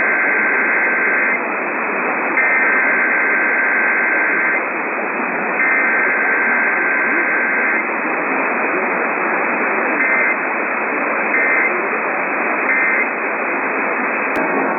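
Emergency Alert System SAME data bursts received over a hissing, static-filled radio. Three header bursts of about two seconds each warble between two high tones, followed by three short end-of-message bursts about a second apart. There is no attention tone or voice message between them, as in a required weekly test. A sharp click comes just before the end.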